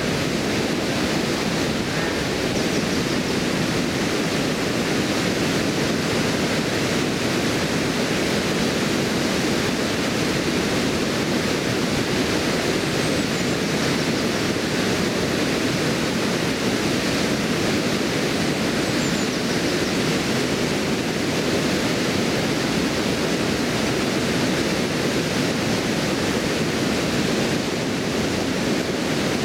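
River water pouring over a stone weir and churning below it: a steady, unbroken rush of water.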